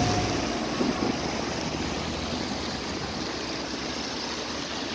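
Steady hiss of splashing water from a jet fountain's spray falling back into a canal.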